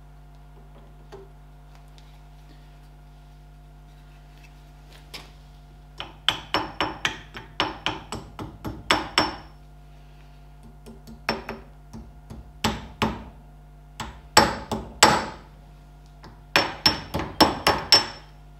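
Small ball-pein hammer tapping on pliers held against the split pin in a tractor front-hub castle nut, bending the pin's legs over. Sharp, ringing metal-on-metal taps: one or two lone taps early, then quick runs of taps from about six seconds in.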